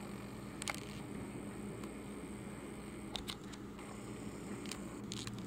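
Quiet room tone with a steady low hum and a few faint, sharp clicks scattered through it.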